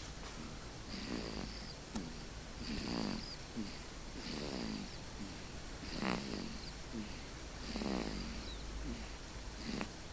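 Sleeping baby snoring: about six rattly snores at an even pace, roughly one every 1.7 seconds, each followed by a softer breath.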